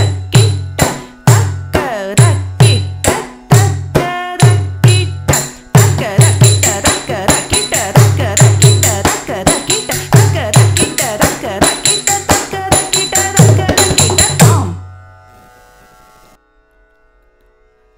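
Mridangam rhythm accompanying Thatti Mettu adavu in Khanda Nadai, the five-beat gait: sharp strokes with deep bass thumps and bright metallic rings on the beats, growing denser about six seconds in. It stops near the end, leaving a faint steady drone.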